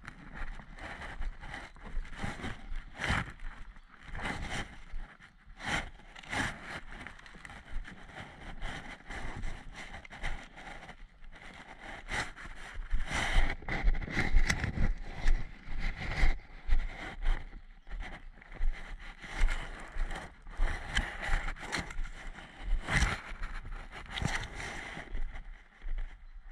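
Footsteps on a dirt woodland path with the rustle of clothing and gear against a body-worn action camera, in irregular steps and scuffs, louder and busier about halfway through.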